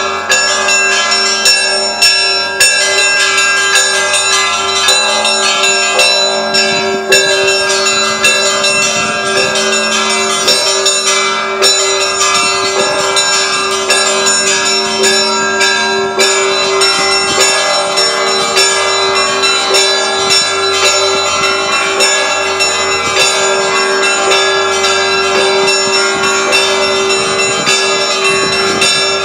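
Russian Orthodox church bells of the Kazan Cathedral rung in a continuous peal: smaller bells struck in quick, dense succession over the steady ring of a larger bell.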